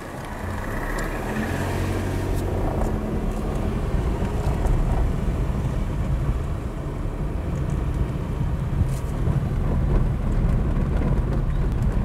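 Car driving along a gravel road, heard from inside: steady low rumble of engine and tyres, growing louder over the first couple of seconds and then holding steady.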